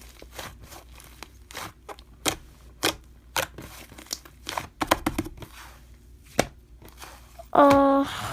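Slime being squeezed and pressed, making sharp irregular clicks and crackles, about two or three a second. Near the end there is a short hum of a voice.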